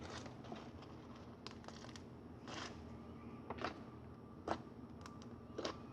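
Slime being squished and stretched by hand, giving a scattering of faint sticky pops and crackles, about half a dozen over a few seconds.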